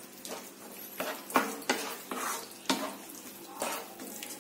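A spoon stirring and scraping thick onion-tomato masala gravy in a kadai as garam masala is mixed in, over a sizzle from the pan. Several sharp knocks of the spoon against the pan are heard, the loudest about a second and a half in.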